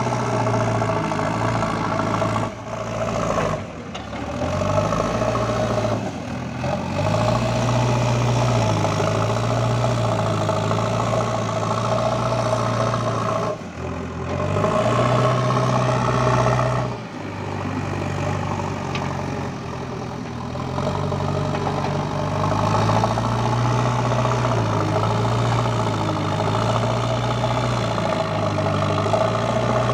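Diesel engine of a JCB 3DX backhoe loader running under varying load, its speed rising and falling several times as it works.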